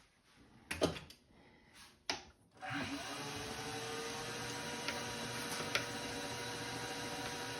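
A few light knocks, then about two and a half seconds in a milling machine's spindle motor starts, its whine rising briefly in pitch and then running steadily.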